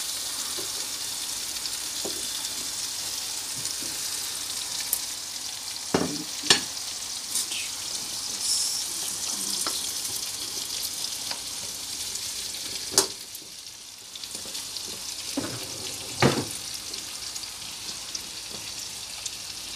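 Salmon, courgette and asparagus sizzling in oil and butter in a frying pan: a steady frying hiss, with a few sharp clicks of a utensil against the pan.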